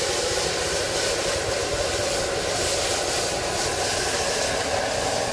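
Propane Cajun burner running at a very hot flame, a steady rushing noise, with the skillet of mussels above it flaming in burning olive oil.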